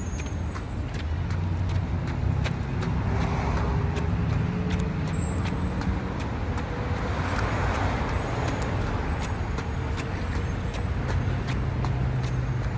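Steady low rumble of road traffic along a city street, with light clicks repeating throughout and a passing swell about halfway.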